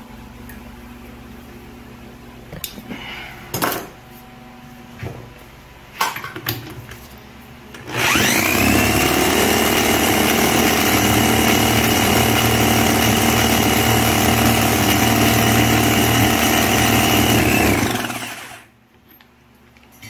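A few knocks and clicks, then about eight seconds in an electric drill spins up with a rising whine and runs steadily for about ten seconds, turning a Yamaha Jog scooter engine's flywheel at high speed to test the ignition pickup's voltage output. It winds down near the end.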